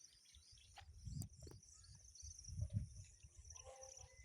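Faint outdoor farm ambience: a steady high insect buzz, a few low bumps of microphone handling, and short bird calls near the end.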